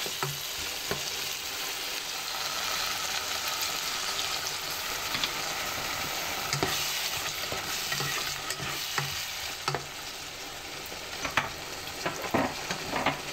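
Tomato sauce with sausage and vegetables sizzling in a non-stick pot, with a steady hiss and scattered knocks of a spatula against the pot as it is stirred.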